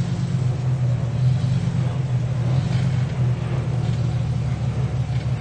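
Engine of a lifted 4x4 rock crawler running steadily at low revs, a constant low drone as it crawls up a boulder.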